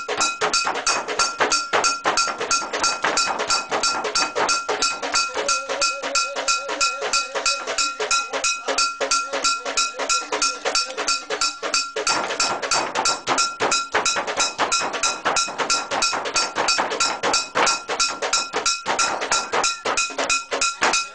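Mentawai ceremonial gong music: metal gongs beaten in a fast, even rhythm of about five strokes a second, ringing with steady metallic tones, accompanying the shamans' trance dance.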